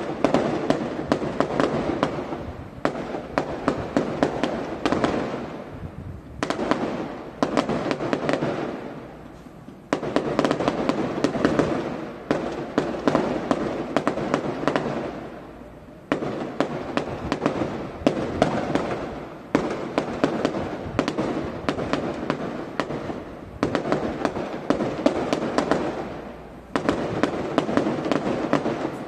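Fireworks display: a continuous succession of crackling bursts. Each starts suddenly and dies away over a second or two, and a new one follows every one to three seconds.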